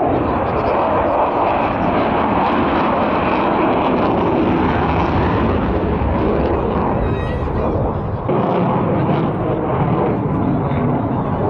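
Loud, steady jet noise from a Sukhoi Su-30 MKI fighter's twin AL-31FP turbofan engines as it manoeuvres overhead, dipping briefly about eight seconds in.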